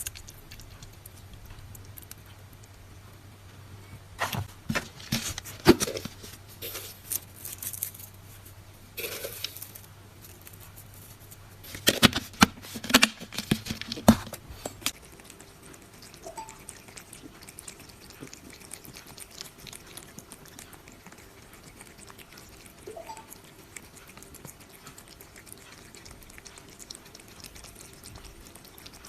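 Sharp clicks and knocks of utensils against a can and dish while canned cat food is portioned, clustered in the first half. These give way to faint, soft, scattered ticks of a cat eating wet food.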